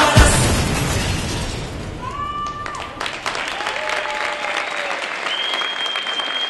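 Dance music ending on a final hit and dying away, then a large crowd cheering and whooping and breaking into applause. A long, steady, shrill whistle rises over the applause near the end.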